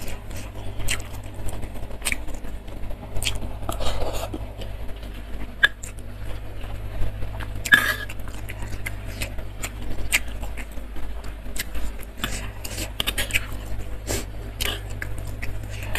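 Close-up mouth sounds of chewing soft, sauce-soaked fried tofu, with a metal spoon now and then clicking and scraping against the stone mortar bowl, over a steady low hum.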